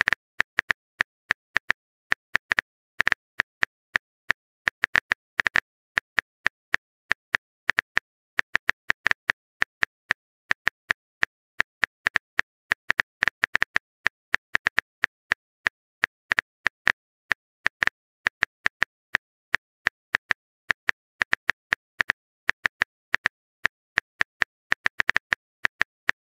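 Phone keyboard key-tap sound effect: a long, irregular run of short, sharp clicks, several a second, one for each letter typed, with silence between them.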